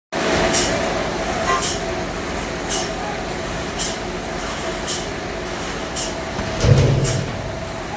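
Sawmill machinery running steadily with a constant hum, with a short hissing tick about once a second and a heavier low thump near the end.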